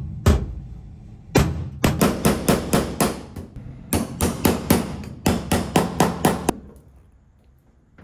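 Hammer blows on a flat metal tool held against the round knockout in a GE washer-dryer combo's sheet-metal side panel, knocking it out to open a dryer vent hole. The blows come in a fast series of about four or five a second, stop briefly and resume, and end about six and a half seconds in.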